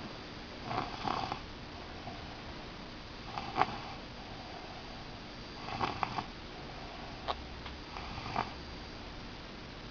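Snoring: four short snores, one every two and a half seconds or so, with a small click between the third and fourth.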